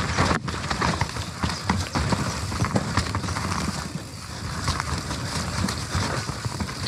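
Nukeproof Mega mountain bike clattering down a rough trail: a continuous fast, irregular rattle of chain and frame with knocks from the tyres and suspension over roots and rocks.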